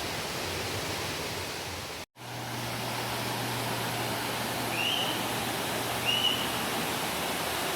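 Steady rush of flowing water, a river or waterfall, with a brief dropout about two seconds in. Two short, high rising chirps sound near the middle.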